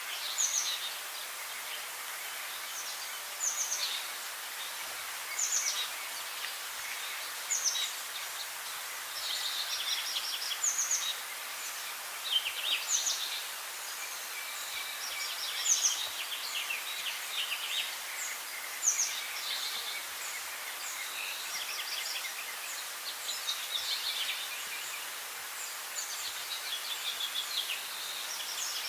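Songbirds singing: a short phrase about every two seconds, each opening with a high, quickly falling note and running into a rapid trill, with more songs overlapping in the second half. A steady hiss runs underneath.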